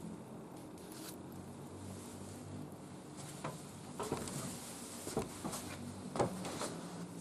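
Wood fire burning in a barbecue grill, crackling with scattered sharp pops that come thicker in the second half, over a low steady hum.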